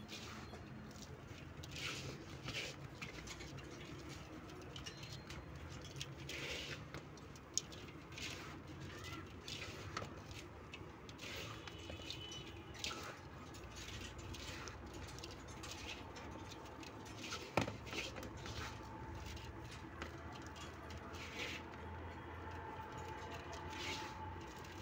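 Hands mixing dampened livestock feed concentrate with chopped wheat straw: an irregular soft rustling and pattering, with two sharper knocks.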